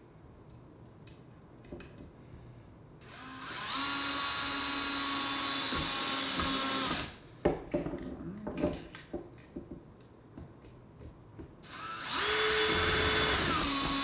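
DeWalt cordless drill/driver driving two deadbolt screws into wood in two steady runs of about four seconds each, the second starting about 12 seconds in. Handling clicks and knocks fall between the runs, and the motor pitch drops a little near the end of the second run.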